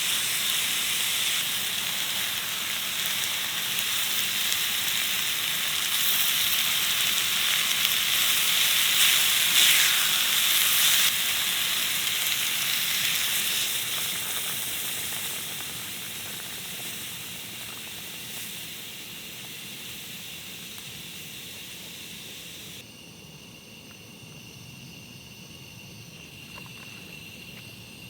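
A loud, even hiss that slowly fades and then cuts off abruptly about 23 seconds in. After that, insects keep up a faint, steady high trill.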